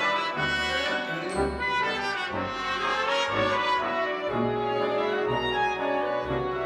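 Wind orchestra playing, with brass to the fore: trumpets, trombones and horns over moving low bass notes.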